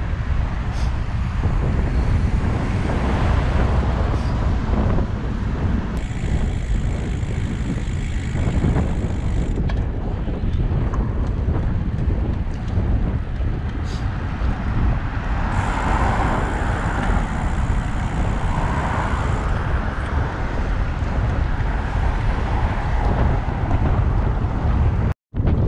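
Wind rumbling over the microphone of a camera on a moving road bike, mixed with road and traffic noise that swells for a few seconds past the middle. The audio cuts out for a moment near the end.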